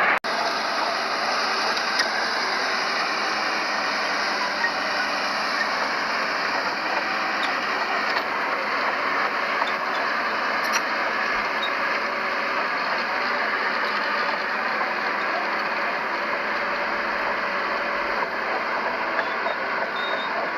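Diesel engines of heavy earthmoving machinery, a bulldozer and dump trucks, running steadily. There is a brief cut-out in the sound just after the start.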